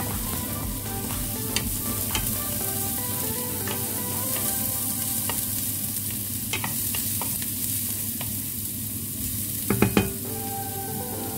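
Sliced white onion frying in hot oil in a pan, sizzling steadily as it is stirred. A few sharp clicks from the utensil on the pan, with a short cluster of louder knocks near the end.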